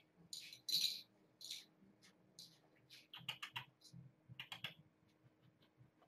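Small cat toy rattling and clicking as it is shaken in the hands, in short irregular bursts, with a quick run of clicks a little past three seconds in and another about four and a half seconds in.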